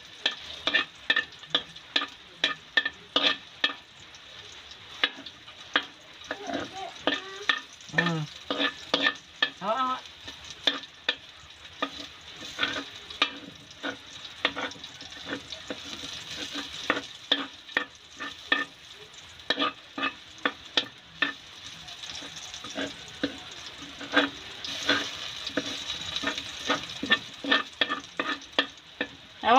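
Metal spatula scraping and knocking against a steel wok, sharp clicks about two or three a second, while minced garlic sizzles in the pan.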